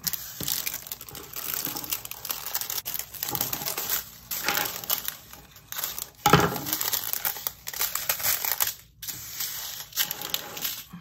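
Plastic bags of round resin diamond-painting drills crinkling and rustling as they are handled, with the loose drills inside clicking and shifting. There is one louder crinkle about six seconds in.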